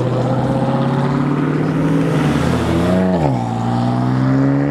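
Performance car engines accelerating hard as a Dodge Challenger and then a BMW coupe pull away. One engine revs up and drops sharply about three seconds in, then an engine climbs steadily in pitch.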